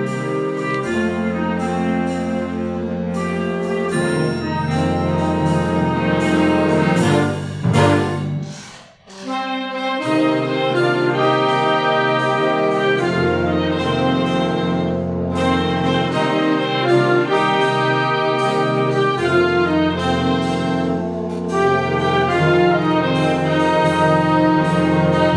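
A concert band playing a blues piece, with brass and saxophones to the fore. The music dips briefly about nine seconds in, then the full band comes back in.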